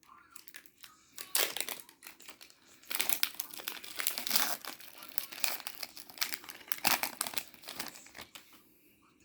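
Foil booster-pack wrapper being torn open and crinkled by hand, a dense run of rapid crackling from about a second in, busiest in the middle and thinning out near the end.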